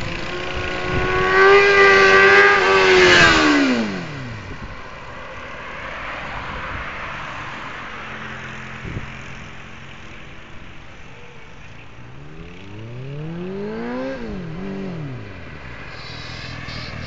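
Suzuki GSX-R750 SRAD motorcycle's inline-four engine revved hard and held high for about two seconds, then throttle closed and revs falling steeply away. After a quieter stretch it is revved up again and dropped, with a second short blip, near the end.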